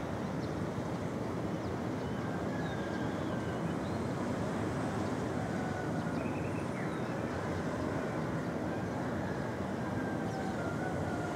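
Steady low rumble of city traffic, with faint short chirps above it.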